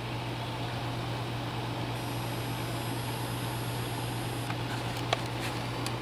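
Steady low mechanical hum with an even hiss, and a few light clicks near the end.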